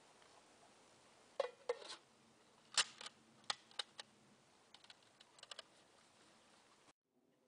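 Small camping gear being handled: a scatter of sharp clicks and knocks, the loudest about a second and a half in and again around three seconds, then a few lighter ticks. The sound cuts off suddenly near the end.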